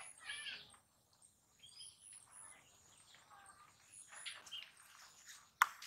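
Small birds chirping and calling on and off, over a thin, steady high-pitched buzz. A single sharp click near the end is the loudest sound.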